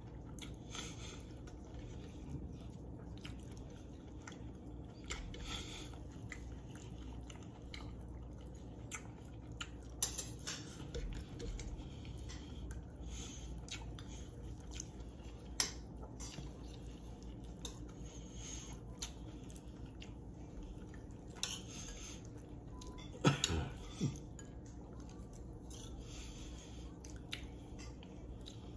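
Quiet eating at a table: spoons and forks clinking on plates now and then, with chewing. A short, louder sliding sound about three-quarters of the way through.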